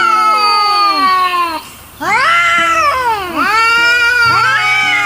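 Angry domestic cats yowling: long, drawn-out wails that rise and then slide down in pitch, one following another with a short break after about a second and a half. It is the hostile caterwauling of cats squaring off.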